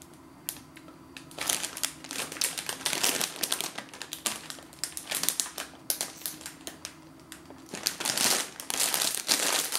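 Crinkly plastic snack bag of individually wrapped mini cakes being handled and turned over, crackling in irregular bursts. The crackling is heaviest about a second and a half in, and again near the end as the bag is gripped at the top and pulled open.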